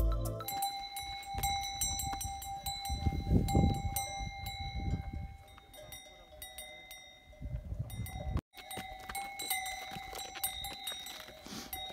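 Bells on pack yaks ringing and clinking steadily as the yaks move about, with low rumbles now and then and a short break about eight and a half seconds in.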